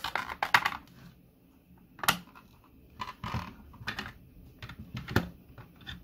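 3D-printed plastic front cover of a project case being prised off by hand: a quick run of sharp plastic clicks and scrapes at the start, then single clicks about a second apart.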